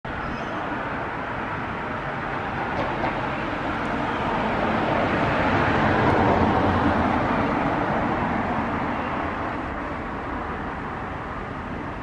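Traffic noise from a passing vehicle: a steady rush that swells to its loudest about halfway through, then slowly fades.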